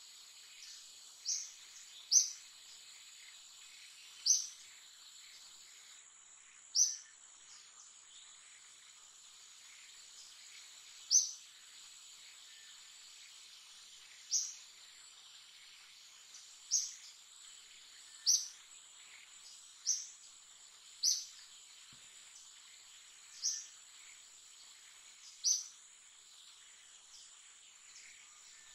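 A bird repeating a short, high chirp about a dozen times at uneven gaps of one to four seconds, over a steady, faint, high-pitched insect drone.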